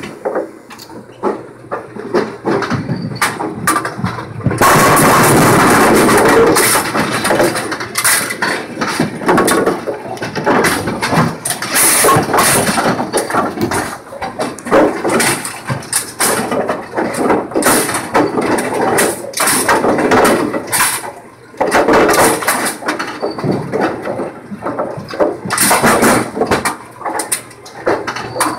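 AMF 82-70 bowling pinsetter running: a continuous mechanical clatter of knocks and rattles from its moving parts and the pins it carries, with a loud, dense stretch about five seconds in.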